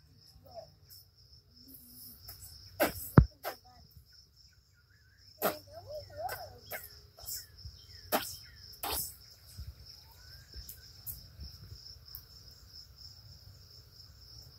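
Crickets chirping in a steady high chorus, broken by a few sharp knocks and taps, the loudest about three seconds in.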